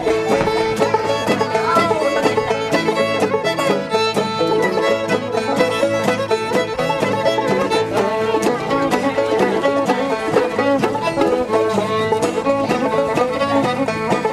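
Background music: upbeat bluegrass-style tune with banjo and fiddle.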